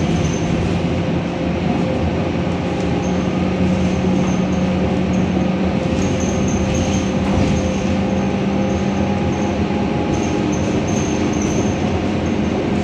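Scania K230UB city bus heard from inside the passenger saloon while driving: a steady engine and drivetrain drone with a held whine that creeps up slightly in pitch and fades about ten seconds in. Short high-pitched squeaks come and go over it.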